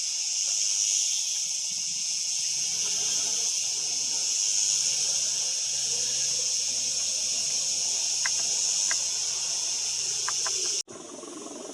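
Cicadas shrilling in a steady, high, continuous hiss, with a faint low engine hum underneath through the middle. The sound cuts off abruptly near the end.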